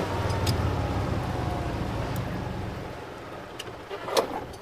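E-Z-GO golf cart driving along a paved cart path, its running sound fading as it slows to a stop, with a few sharp clicks near the end.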